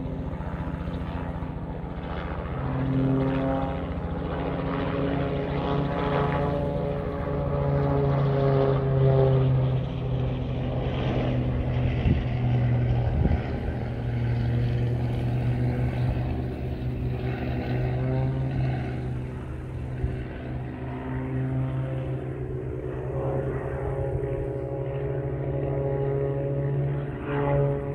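Single-engine propeller plane flying aerobatics overhead, a steady engine-and-propeller drone whose pitch shifts up and down several times as the power changes through the manoeuvres.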